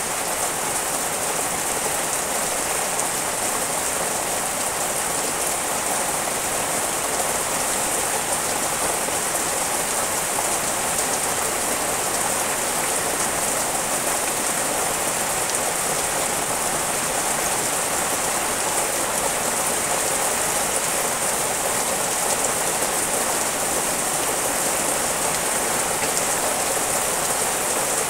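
Steady rain falling on tree leaves and garden plants, an even hiss with no let-up.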